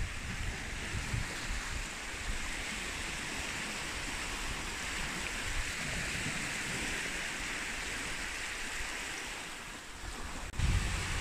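Small waves washing up a sandy beach, a steady hiss of water. Near the end, wind rumbles on the microphone.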